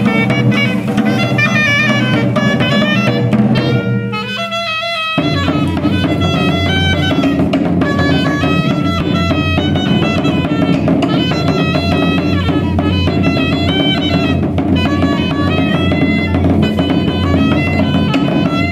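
A clarinet-and-tambora ensemble playing a tune: clarinets carry the melody over steady beating on the large double-headed tambora drums. About four seconds in the drums drop out for about a second while the clarinets play on alone, then the drums come back in.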